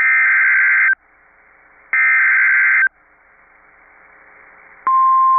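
Emergency Alert System SAME header: two one-second bursts of warbling digital data tones a second apart, with faint hiss between them, encoding a new alert, here a flash flood warning. Near the end a single steady alert tone just above 1 kHz switches on, the National Weather Service's 1050 Hz warning alarm tone.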